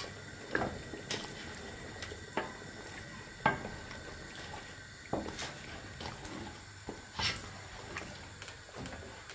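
A pot of goat head stew cooking near the end of its simmer, with about ten short sharp pops and clinks at irregular intervals over a low steady background; the loudest comes about three and a half seconds in.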